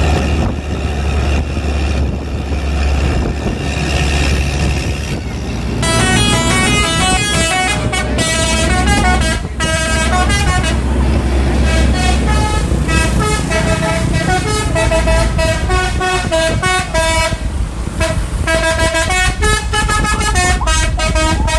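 A tour bus's engine running steadily, then about six seconds in its basuri 'telolet' multi-tone horn starts playing a quick tune of short stepping notes, with a few brief breaks.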